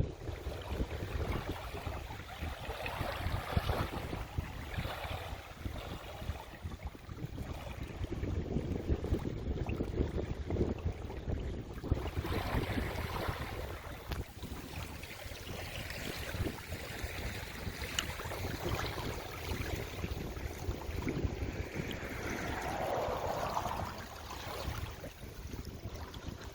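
Wind buffeting the microphone over the wash of seawater: a gusty low rumble with swelling and fading water noise, and no steady engine tone.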